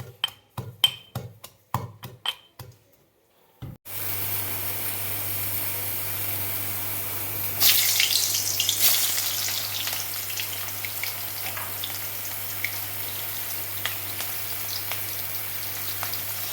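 A run of sharp knocks, about three a second, stops after about three seconds. Then onions frying in hot oil in a kadai, a steady sizzle that flares loudest around eight seconds in.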